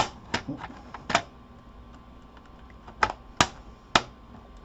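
Plastic snap clips on a Toshiba Satellite laptop's battery panel and bottom case clicking as they are pried loose: a quick run of about four sharp clicks in the first second or so, then three more about three seconds in.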